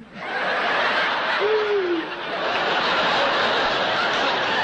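Studio audience laughing hard, starting just after the punchline. One short hoot-like voice rises and falls above the laughter about a second and a half in.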